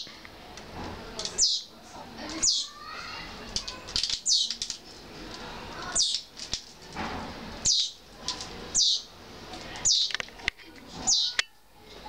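Young sparrows fledged from the nest calling with short, high cheeps that slide sharply downward, repeated about once a second and sometimes twice in quick succession: the begging calls of fledglings near a parent bringing food.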